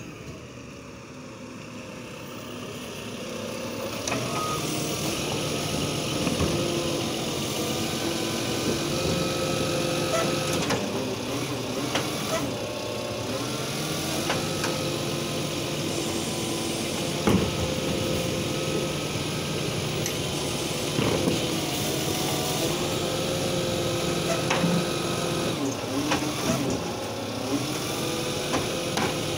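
Side-loader garbage truck pulling up and then working its automated bin arm: the engine and hydraulics run with a whine that steps up and down in pitch as the arm lifts and tips a wheelie bin into the hopper, with repeated clanks and knocks from the arm and bin.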